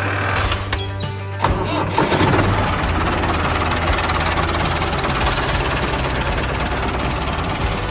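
An engine starting with a few sharp clicks, then running steadily, over background music.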